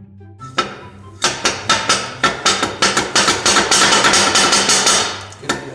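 Repeated hammer blows on metal, a few a second at first, then coming thick and fast through the middle before easing off near the end, over background music.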